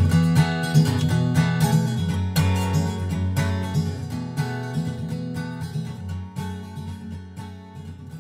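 Background music: a solo acoustic guitar instrumental, gradually fading out.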